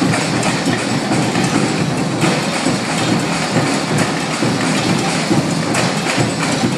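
Drum line of snare drums and large bass drums playing together in a fast, dense, steady rhythm.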